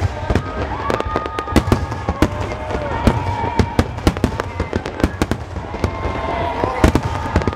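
Aerial fireworks going off in a fast barrage: many sharp bangs and crackles in quick succession over a steady low rumble, with a few tones that rise and then hold.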